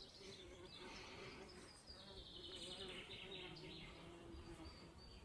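A flying insect buzzing steadily, its hum wavering slightly in pitch, with faint high bird chirps and trills above it.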